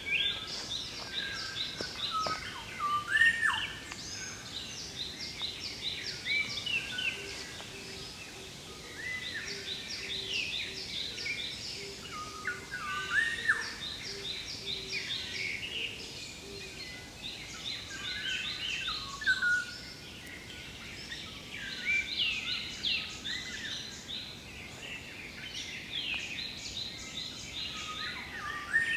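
Several songbirds singing and calling together: quick series of short high notes repeated every few seconds, mixed with lower slurred, swooping calls.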